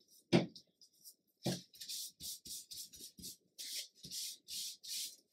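Hand rubbing over glued paper on a journal page to press it down, in quick repeated strokes. A sharp knock, the loudest sound, comes about a third of a second in, with a second knock about a second later as the rubbing starts.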